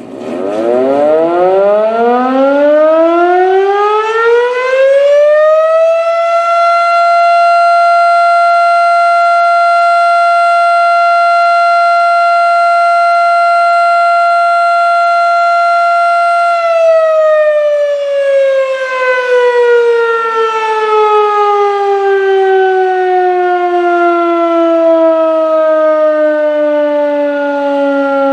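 Erick outdoor warning siren sounding its daily short alert: it winds up in pitch over about six seconds, holds one steady wail for about ten seconds, then winds slowly down, still sounding at the end.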